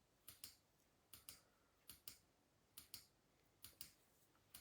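Computer mouse clicking at a steady pace, a little more than once a second, each click a quick double tick of button press and release.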